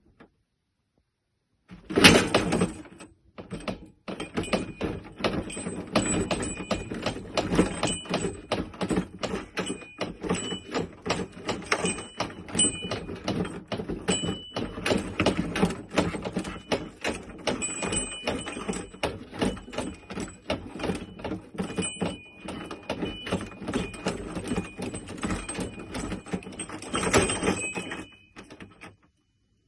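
A dense, irregular run of knocks, taps and clatter, several a second, starting with a louder hit about two seconds in, with faint high steady tones coming and going.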